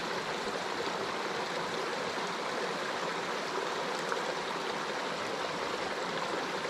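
Small mountain creek cascading down a rocky boulder slope: a steady sound of running water.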